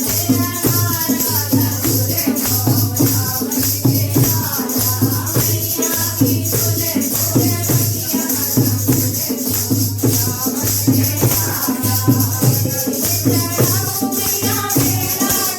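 Music with a steady bass beat and a constant shaker-like rattle, under a wavering melody line.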